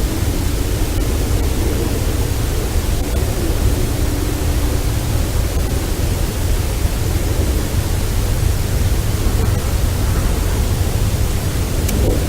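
Steady hiss with a strong low rumble, the noise floor of an outdoor audio recording. Faint humming tones sit in it during the first few seconds, and there is a single click near the end.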